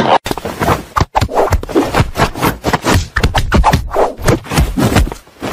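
A cat scratching and pawing at something in a fast, irregular run of scraping scratches.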